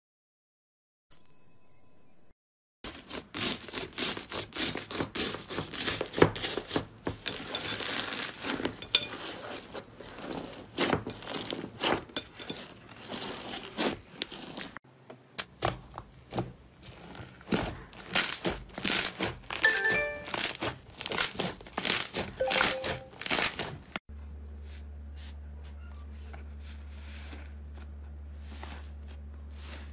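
A short electronic chime, then hands pressing and squeezing slime, making dense crackling, clicking and squelching pops. About 24 seconds in this gives way to a steady low hum with faint crackles as fingers push into a slab of slime.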